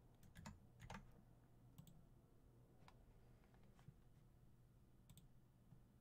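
A handful of faint, irregularly spaced clicks from a computer keyboard and mouse being used, over near silence.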